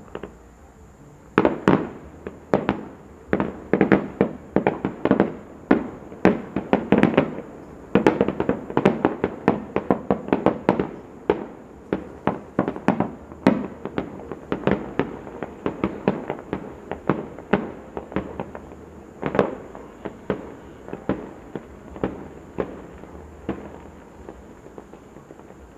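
Fireworks display: a rapid run of shell bursts and bangs starting about a second and a half in, densest in the middle and thinning toward the end, with one louder bang about three-quarters of the way through.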